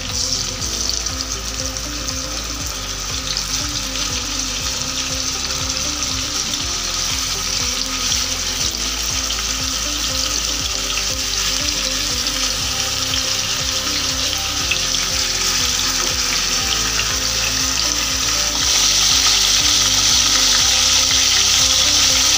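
Marinated chicken pieces sizzling as they are laid into hot oil in a nonstick pan with tongs to sear for colour. The sizzle builds as more pieces go in and grows louder about eighteen seconds in.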